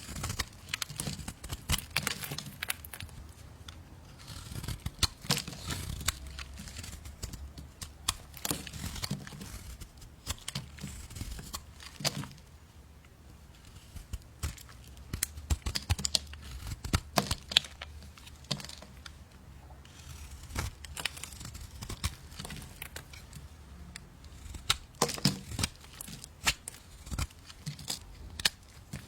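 Irregular crisp crackling and tearing: clusters of sharp clicks as some material is crushed, cut or pulled apart, with a couple of quieter stretches.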